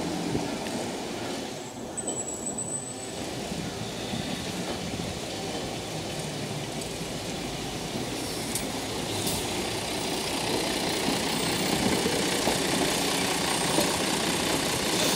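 Steady street traffic noise as a Sapporo Type 8510 streetcar pulls away and a diesel city bus comes up close, the bus engine getting louder over the second half.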